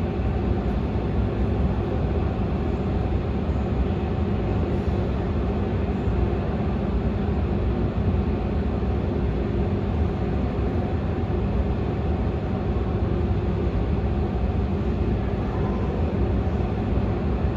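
Airliner engines running while the plane moves on the ground: a loud, steady low rumble with a faint steady hum over it.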